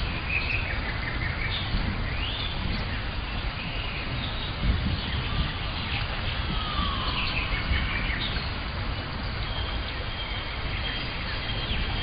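Rainforest birds calling: many short chirps and whistles, one lower falling call a little past halfway, and a steady high tone joining near the end. Under them runs a constant low rumble.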